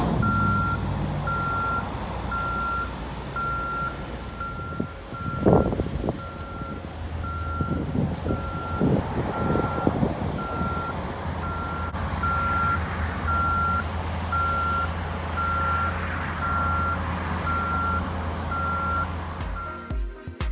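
Reversing alarm on a construction vehicle beeping steadily about once a second over a running truck engine, with a passing vehicle rushing by about a quarter of the way in.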